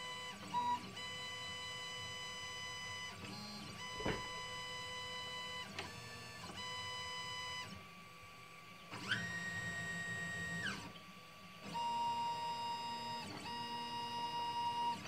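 Stepper motors of a small CNC machine whining as they drive a pen across paper. The whine holds steady tones that jump to new pitches every second or two as each stroke starts and ends, with a couple of short clicks.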